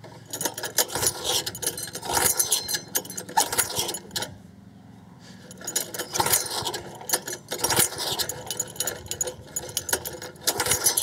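Recoil starter on a small four-stroke lawnmower engine being pulled again and again, each pull giving a rapid clatter as the engine is cranked over without catching; the pulls come in two runs with a pause about four seconds in.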